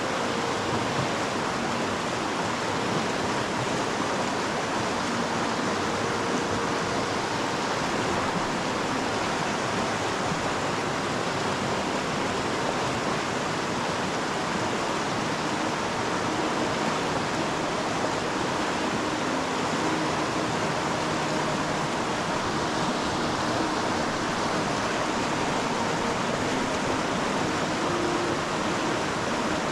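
Pecos River water flowing and rushing steadily, an unbroken even hiss of current.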